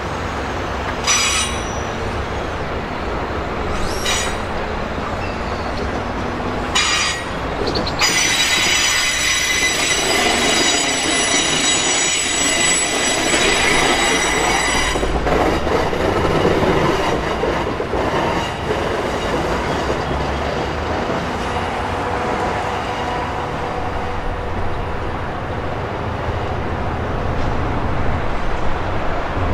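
Amtrak Cascades passenger train rolling past with a steady rumble. Its wheels give short squeals about 1, 4 and 7 seconds in, then a sustained high-pitched squeal for about seven seconds from roughly the 8-second mark.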